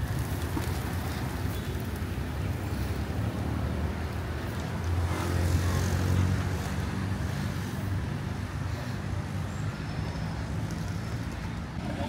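Road traffic on a city street: a steady rumble of vehicle engines, with one vehicle passing close and louder about five seconds in.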